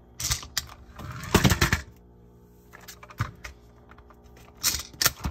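Plastic Slam & Go toy monster truck clicking and clattering as it is handled and pressed down on its back, in a few short bursts of rattling clicks, the loudest about a second and a half in and another near the end.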